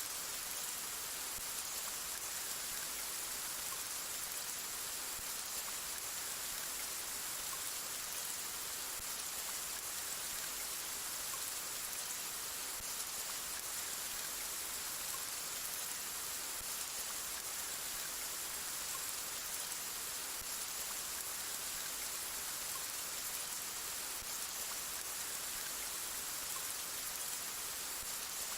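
Steady rain falling, an even hiss of many drops with no thunder or breaks.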